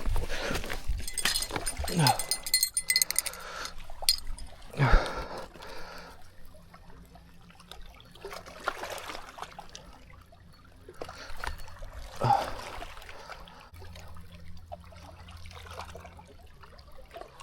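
Lake water splashing and trickling, with a few sharper splashes.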